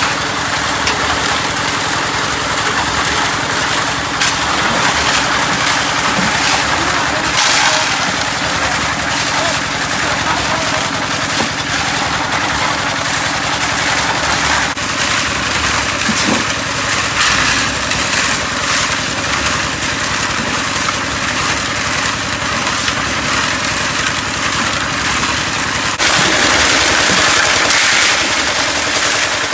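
An engine running steadily, with a loud rattling hiss over it. The sound changes abruptly about halfway through and again near the end.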